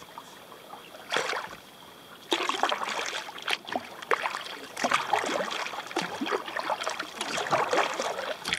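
Kayak paddle strokes: the blades dip and pull through lake water with splashing and dripping. One splash comes about a second in, and steady paddling starts about two seconds in.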